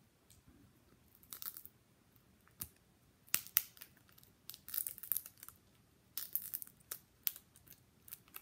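Plastic wrapping being peeled and torn off the outer layer of an L.O.L. Surprise toy ball, in short crackling bursts about every second.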